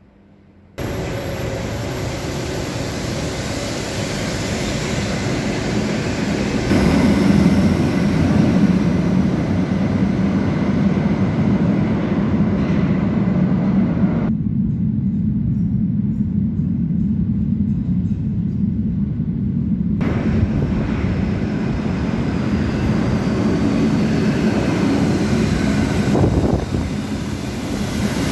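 Metro train running on the rails with a steady, loud rumble that starts abruptly about a second in, as the train approaches and pulls into an underground station.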